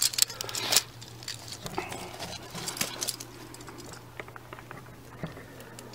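Light clicks and clatter of hard 3D-printed plastic sample tabs being handled, densest in the first second, with scattered taps after. A faint steady low hum runs underneath.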